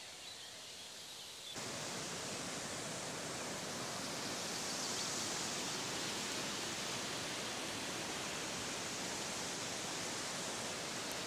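Steady rush of a fast-flowing river, cutting in abruptly about one and a half seconds in after a quieter outdoor ambience.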